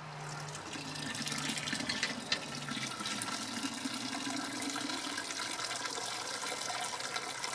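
Hot wort pouring and dripping out of a freshly lifted brew-in-a-bag grain bag back into a 10-gallon stainless steel kettle, draining the mashed grain. A steady splashing stream that builds up about half a second in.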